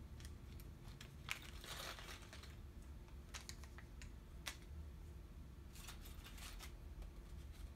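Small electronic parts being picked up and set down on a workbench: scattered light clicks and taps, with a brief rustle about two seconds in, over a low steady hum.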